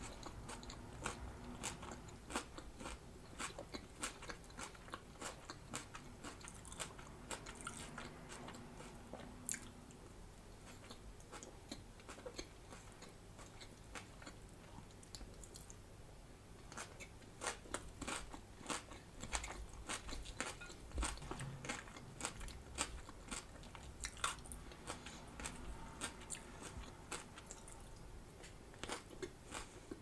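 Close-miked crunching and chewing of crisp raw salad, red cabbage and lettuce, eaten by the spoonful. The crunches come thick and fast, ease off for a few seconds midway, then pick up again.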